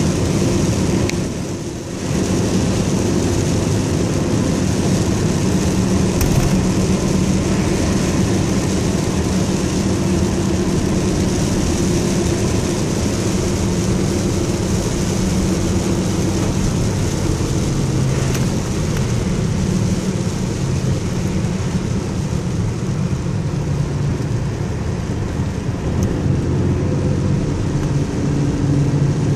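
Steady engine and road noise heard from inside a moving vehicle's cab, with an even hiss of tyres on wet pavement.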